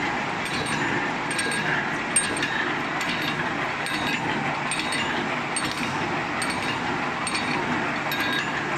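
Automatic wire mesh welding machine running: a steady mechanical clatter with repeated metallic clinks as it welds the cross wires onto the line wires and winds the mesh.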